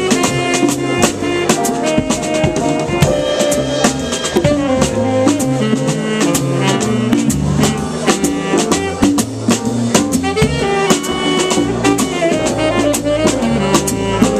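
Jazz quartet playing live: a drum kit keeps time with frequent cymbal strokes under moving melody lines and a stepping bass line.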